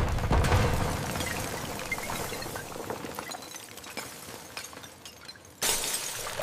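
A stack of cased glass wine bottles crashing to the floor and shattering: a heavy crash at the start, then a long spell of breaking and tinkling glass that dies away. A second loud burst of shattering glass comes in near the end.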